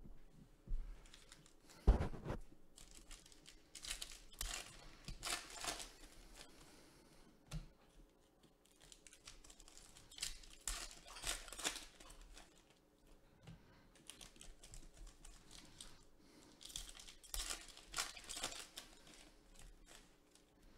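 Foil wrappers of Leaf Draft Football trading-card packs being torn open and crinkled, in several bursts, with a sharp knock about two seconds in.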